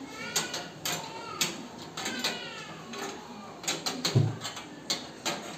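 Sheet-metal clinks and knocks as a split AC outdoor unit is handled onto its steel wall bracket, with a heavy thump a little after four seconds in. Several short squealing glides come in the first half.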